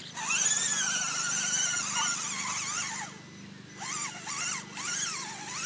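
Electric motor of an Axial SCX10 RC crawler whining under throttle as it drives through mud. The pitch climbs and wavers for about three seconds, then rises and falls in about four quick throttle blips near the end.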